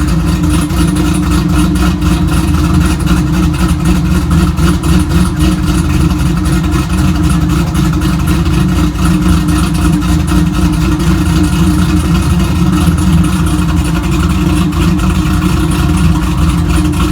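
Cammed LS1 V8 of a 2002 Camaro SS running steadily and loudly, with a fast, even pulse and no change in speed.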